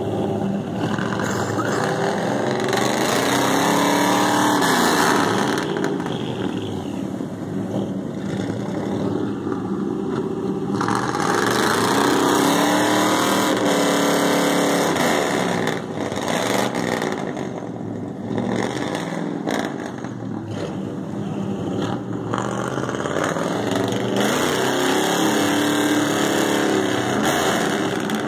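Pickup truck engines revving hard, rising and falling in several long surges, as a Ford pickup tries to pull a stuck Chevy square-body pickup out of deep mud on a tow strap.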